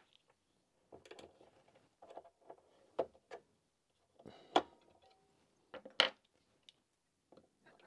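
Light clicks and taps of a small screwdriver prying AA batteries out of a toy car's plastic battery compartment, against the spring contacts and plastic: a handful of separate clicks spread out about a second apart.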